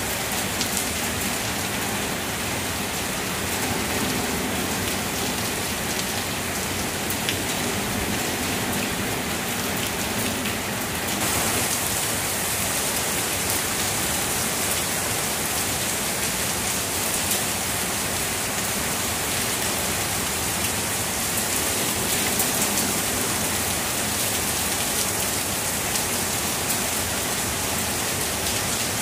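Heavy rain falling steadily, a dense even hiss; about eleven seconds in the high part of the hiss turns louder and sharper.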